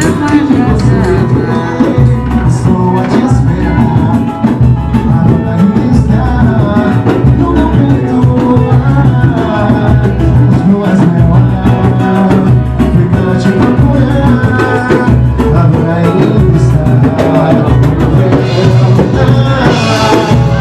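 Samba band playing, with singing over a steady percussion beat.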